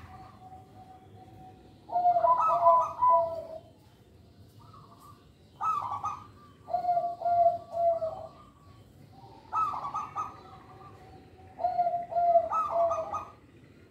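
A zebra dove (perkutut) singing: four phrases of quick, clipped coos, each lasting one to three seconds, with short pauses between them.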